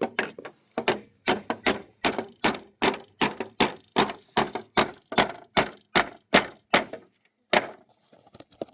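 Hammer blows on wooden timber, about three a second, in a steady run that stops near the end with one last blow.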